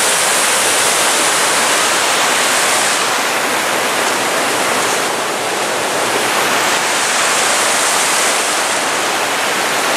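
Waterfall: loud, steady rush of falling water, with no break, easing slightly in its hiss about midway.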